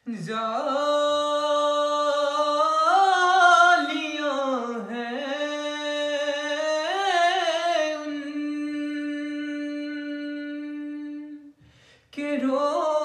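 A man singing a naat unaccompanied, one long drawn-out phrase with ornamented turns of pitch. It settles into a long held note, breaks off about a second before the end, and the next phrase starts.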